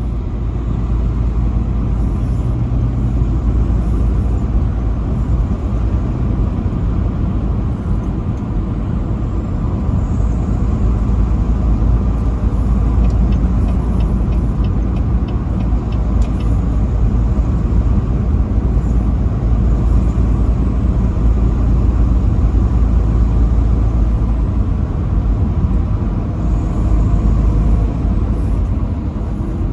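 Truck driving on the interstate: a steady low engine and road rumble throughout, with a brief run of faint ticks about halfway through.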